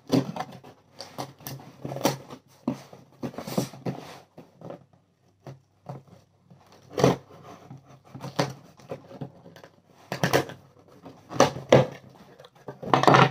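A knife slitting packing tape on a cardboard shipping box, then the box flaps being pulled open and the packaging rustling, in irregular scrapes and rustles.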